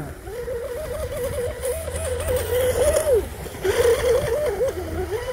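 Electric RC speedboat's brushless motor and propeller whining at speed, the pitch wavering with the throttle. The whine drops about three seconds in and picks up again a moment later, with a hiss of spray as the boat passes close.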